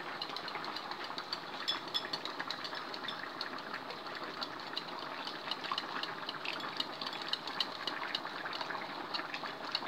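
Wire whisk beating a thick cornstarch slurry in a glass bowl, working out the lumps: many light, irregular ticks of the wires against the glass over a steady hiss.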